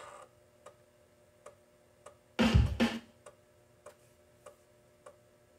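Quiet opening of a music track playing back: a steady ticking beat over a few held tones, with a louder hit about two and a half seconds in.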